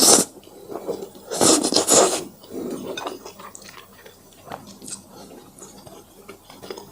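Close-up eating sounds of fire noodles: a loud slurp at the start and another about a second and a half in, then soft, quieter chewing with small wet clicks.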